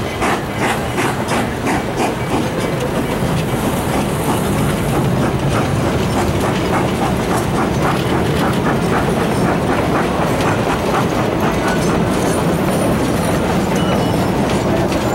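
Narrow-gauge passenger coaches rolling past close by: a steady rumble of steel wheels with an even run of clicks over the rail joints, which smooths out about two-thirds of the way through.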